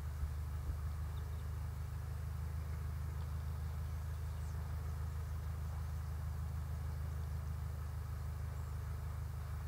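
Steady low mechanical hum, deep in pitch and unchanging in level, with two faint clicks within the first second.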